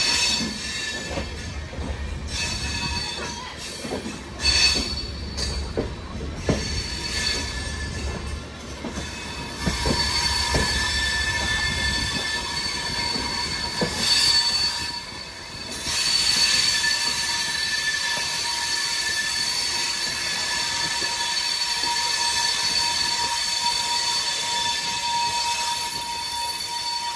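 Wheels of a moving Indian Railways passenger train squealing against the rails as the coaches take curving track, a steady high ringing that grows more constant in the second half. Knocks of the wheels over rail joints and points come through in the first half.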